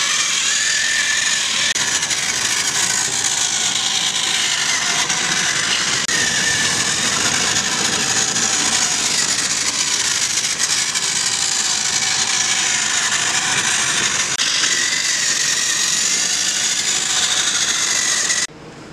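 Battery-powered Trackmaster toy tram's small electric motor and plastic gears whirring steadily as it runs along the plastic track, the pitch wavering slightly now and then. The sound cuts off abruptly near the end.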